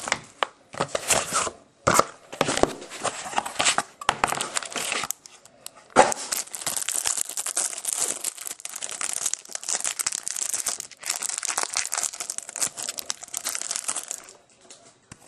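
Plastic wrapping on a box of trading cards being torn open and crinkled by hand: short bursts of crinkling for the first few seconds, then almost continuous crinkling from about six seconds in until shortly before the end.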